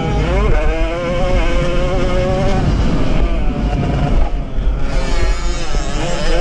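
Small two-stroke single-cylinder Jawa 50 racing engine running at high revs, heard from on board with low wind rumble. The revs dip and pick up again just after the start, hold steady, then ease off around four seconds in and climb back near the end.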